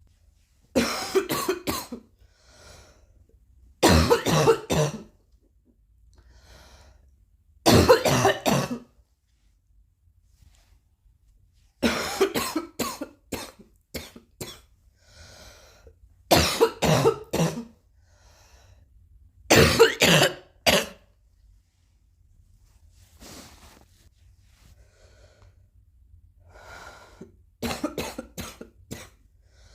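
Repeated coughing fits: about seven bouts, each a run of several harsh coughs in quick succession, separated by quieter pauses of a few seconds.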